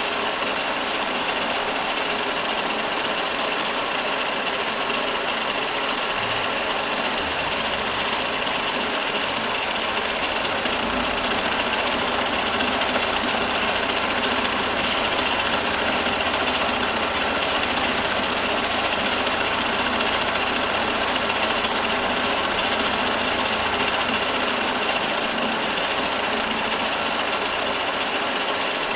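Milling machine running steadily while cutting metal, a continuous mechanical whir with a steady high tone. A low hum joins about seven seconds in.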